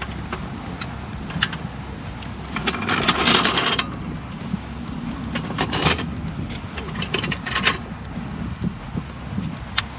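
Gear being handled: scattered light clicks and clinks and a rustling burst about three seconds in, over a steady low rumble.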